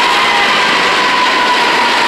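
Norfolk Southern diesel-electric freight locomotives passing close by: loud, steady engine and rail noise with a high whine that drifts slowly lower in pitch.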